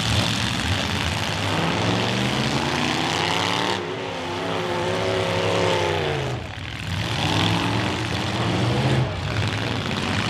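Several demolition derby cars' engines revving hard, their pitch climbing and falling again several times, over a dense, loud running drone.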